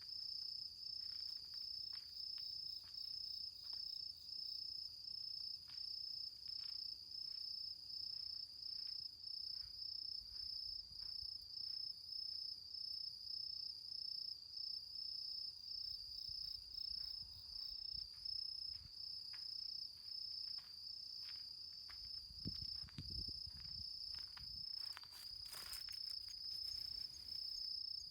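Crickets singing in a steady, evenly pulsing high trill, over faint scattered crackles from the embers of a campfire. A brief rustle near the end.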